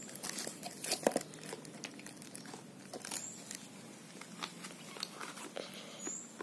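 Clear plastic adhesive tape crinkling and crackling as hands press it around a battery on a cardboard piece, with irregular small clicks and rustles of cardboard being handled.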